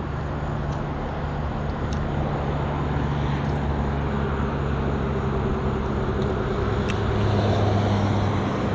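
Steady highway traffic noise, a low engine and tyre hum that grows louder near the end.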